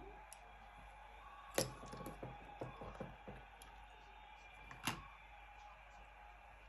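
Faint, sharp clicks and light knocks of small objects handled on a tabletop: one sharp click about one and a half seconds in, a run of softer taps over the next two seconds, and another sharp click near five seconds.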